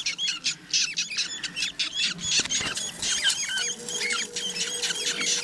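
Week-old budgerigar chicks cheeping and squeaking, a dense run of short, high calls several a second, overlapping one another.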